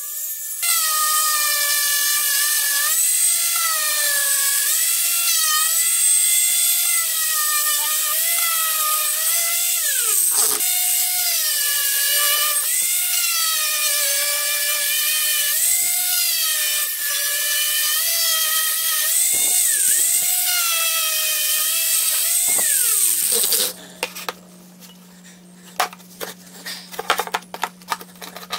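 Angle grinder with an abrasive disc running against a rusty steel ax head to strip it to bare metal. Its whine sags and recovers as the disc is pressed into the steel. It slows sharply and picks up again about ten seconds in, then winds down and stops about 23 seconds in, leaving a low hum and scattered light knocks.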